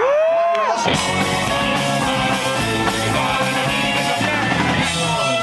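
Live rock band playing electric guitar and drums. Sliding, arching notes in the first second, then the full band comes in about a second in and plays on steadily.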